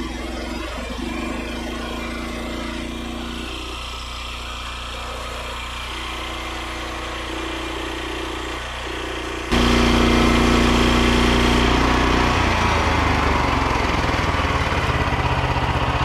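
Petrol engine of a Frontier OS27 portable bandsaw mill running steadily at low speed, then revving up sharply about nine and a half seconds in and staying much louder.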